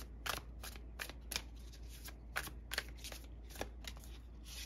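A deck of tarot cards (Witches Tarot) being shuffled in the hands: quick, irregular snaps and flicks of card against card, about four a second.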